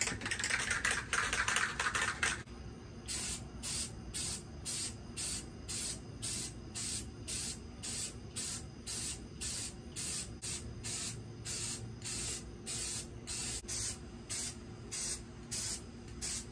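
Aerosol can of Rust-Oleum matte clear enamel spraying a sealing coat onto a cork duck decoy, with a louder rattling hiss for the first two seconds or so. Over it, night insects chirp in a steady rhythm of about two short chirps a second.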